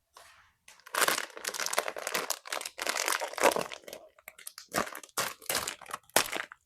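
Plastic blind-box bag crinkling as it is torn open and handled. Dense crackling lasts about three seconds, then comes several shorter rustles.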